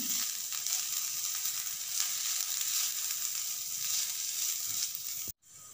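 Chopped onions and chilli powders sizzling as they sauté in hot oil in a pan, stirred to mix in the spices. The steady, high sizzle cuts off suddenly near the end.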